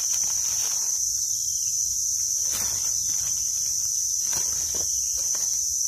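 Steady high-pitched drone of insects, with a few faint scrapes and rustles as a knife trims a freshly picked mushroom over dry leaves.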